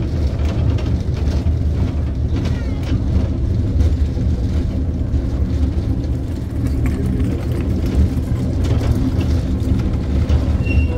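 A vehicle running steadily with a low rumble.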